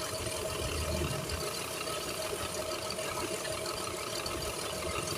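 A steady machine hum with a constant hiss, holding an even level throughout.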